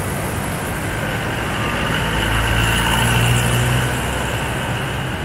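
Street traffic: a motor vehicle's engine passes close by, its low hum swelling to a peak in the middle and fading again.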